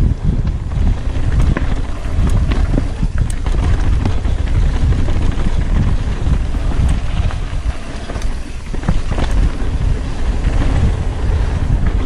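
Wind buffeting the microphone of a rider-mounted camera as a mountain bike descends a dirt trail at speed, a steady heavy rumble with scattered sharp knocks and rattles from the bike going over bumps.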